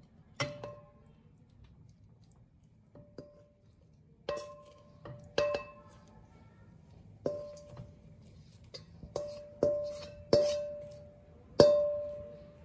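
A metal utensil knocking against a wok while food is scraped out onto a plate: about ten sharp knocks at uneven intervals, each ringing briefly at one pitch, the last the loudest.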